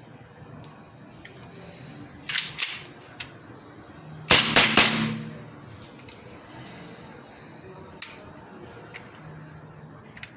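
HFC PT92 gas blowback airsoft pistol firing: two sharp shots about two seconds in, then a louder rapid string of shots about four seconds in, with a couple of faint clicks later.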